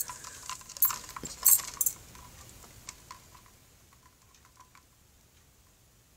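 A quick run of clicks, taps and rattles over the first two seconds, thinning to faint ticks by about five seconds in: handling noise as the phone is moved and a plastic cup is picked up to drink from.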